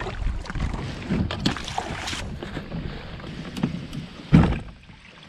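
Strong wind rumbling on the microphone, with short knocks and slaps of choppy water against a kayak. One loud thump comes about four seconds in, and it is quieter after that.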